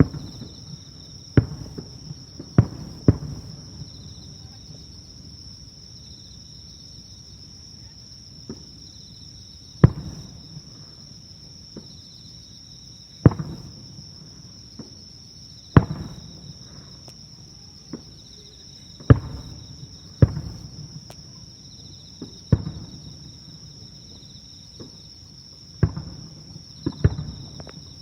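Distant aerial fireworks bursting: a dozen or so sharp booms at uneven intervals, each trailing off in a low rumble, with some fainter pops between them. A steady high-pitched shrill sound runs underneath.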